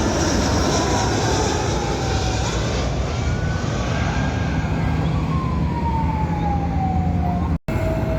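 Jet airliner passing low on its landing approach: a steady engine rumble with whining tones that slide down in pitch as it goes by. The sound drops out for an instant near the end.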